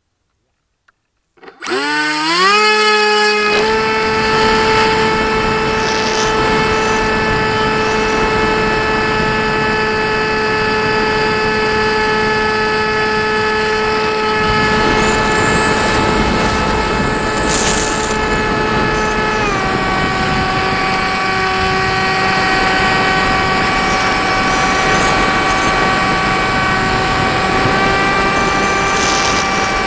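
Firstar 2000 motor glider's electric motor and propeller, heard from the onboard camera. About a second and a half in, it spins up with a rising whine, then runs at a steady high whine over rushing air. About two-thirds of the way through, the whine drops slightly in pitch as the throttle eases, and it edges back up near the end.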